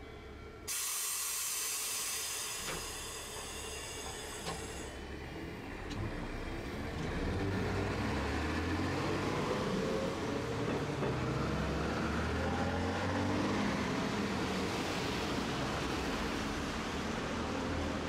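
Streetcar pulling away: a sudden loud hiss of released air about a second in, lasting about four seconds. The tram then starts moving with a rumble and a motor whine that rises in pitch as it speeds up.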